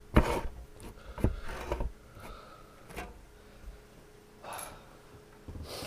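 A series of short knocks and rubbing sounds, the loudest right at the start, with a brief hiss a little after the middle.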